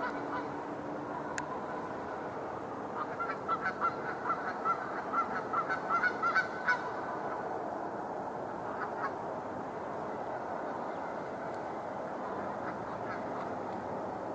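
A quick run of short honking calls for about four seconds, starting about three seconds in, over a steady background hum.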